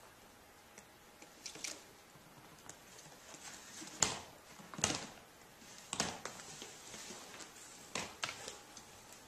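Scattered sharp taps and bumps on a hardwood floor, several of them a second or so apart, the loudest about four seconds in.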